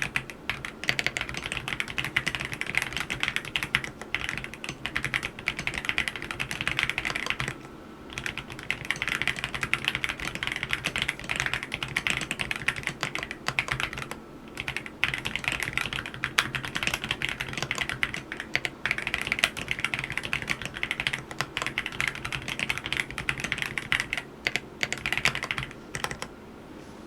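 Typing on an AULA F87 mechanical keyboard with yellow switches: fast, continuous keystrokes in long runs, with short pauses about eight and fourteen seconds in, stopping shortly before the end.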